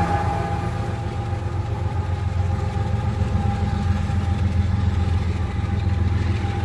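Diesel freight locomotive running with a steady low rumble and a steady higher whine above it.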